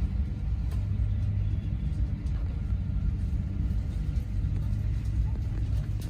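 Steady low rumble inside the cabin of a parked Airbus A350-900, with the air-conditioning and ventilation running before engine start.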